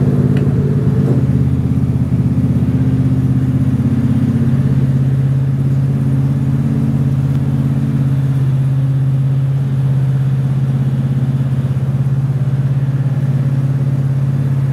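John Deere riding lawn mower's engine running steadily as the mower is driven around.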